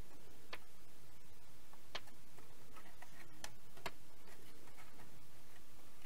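A few faint, irregular clicks and taps as fingers work a circuit board against its plastic retaining clips, over a steady background hiss.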